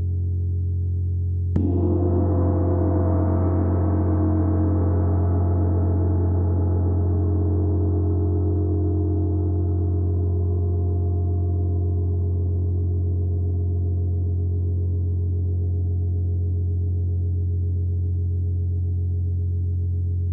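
A 28-inch Chinese Chau gong struck once with a padded mallet about a second and a half in, over the low hum still sounding from the stroke before. A dense cluster of many pitches and overtones blooms, then the higher ones slowly fade, leaving a deep steady hum.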